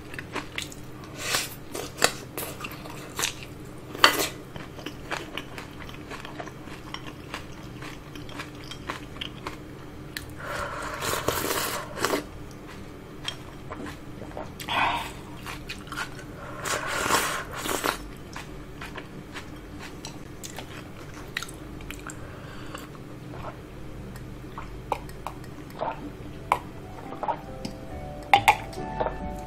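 Close-miked eating: chewing and crunching green onion kimchi in many short crisp clicks, with two longer slurps from a bowl of spicy udon broth about a third and two-thirds of the way through, and sips of barley tea from a glass near the end.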